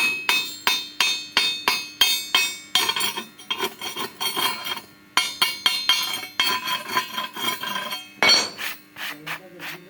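A hammer striking steel over and over, each blow a sharp metallic clink with a short ring, about four a second at first, then faster and more irregular. One of the loudest blows comes a little after eight seconds in.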